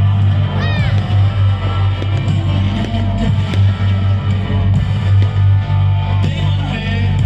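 Rock music with guitar over a deep, steady bass line.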